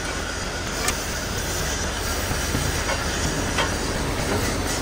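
Loud, steady hissing crackle of arc cutting on steel, with a few sharp clicks scattered through it.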